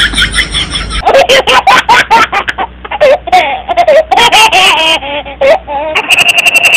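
Dubbed-in laughter sound effects: high-pitched giggling and laughing in quick spurts, spliced clips that change abruptly about a second in and again near the end.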